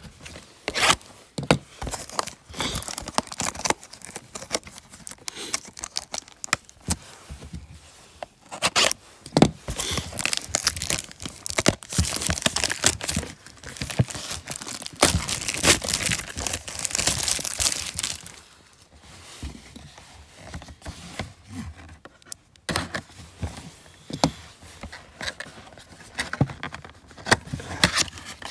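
Plastic shrink-wrap being torn and peeled off a sealed cardboard trading-card box: crinkling and crackling plastic with sharp rips, busiest and loudest in a long stretch through the middle.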